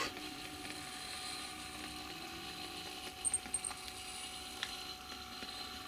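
Bachmann Tornado model locomotive chassis running on the track, its small electric motor and gears whirring steadily. About halfway through come a few faint high squeaks, which the owner puts down to a dry front axle.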